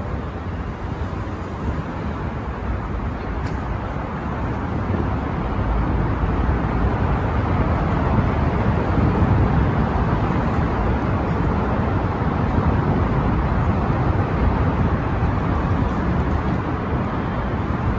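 Steady road traffic noise: a continuous low rumble of cars and highway traffic.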